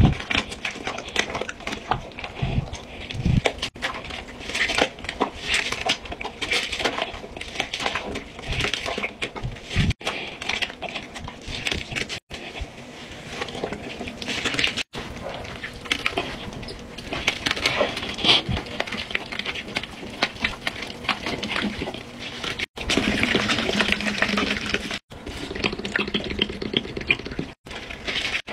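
Wet sponge squelching and swishing through thick foamy cleaner in a toilet bowl, the foam crackling and popping, broken by a few brief gaps.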